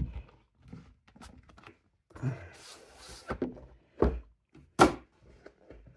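Stiff cardboard gift box handled on a wooden tabletop: a few dull thunks as it is set down and knocked against the wood, with a brief scraping slide about two seconds in. The loudest thunk comes near the end.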